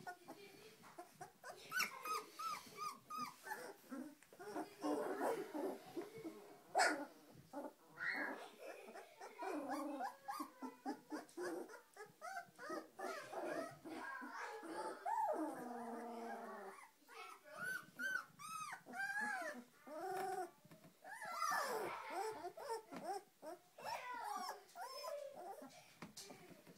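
A litter of two-week-old doodle puppies calling as they crawl over one another: a steady stream of short, high squeaks and whines that rise and fall, with a longer falling whine about halfway through.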